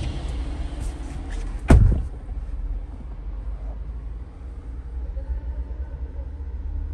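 Low steady rumble inside a car cabin, with a few faint clicks and then one loud thump a little under two seconds in.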